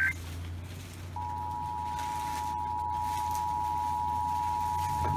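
The last warbling data burst of an Emergency Alert System digital header cuts off right at the start. After about a second of radio hiss and low hum, the EAS attention signal, a steady two-tone beep just under 1 kHz, begins and holds, heralding an emergency alert broadcast.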